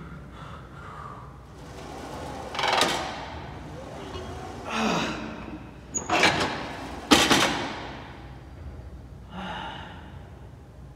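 Hard, falling-pitch exhalations from exertion, then two sharp metallic knocks of gym weights or machine parts about 6 and 7 seconds in.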